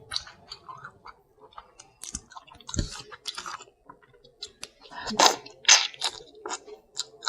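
Close-miked chewing of seafood: a run of short, wet smacking and crunching bites, loudest a little after five seconds in.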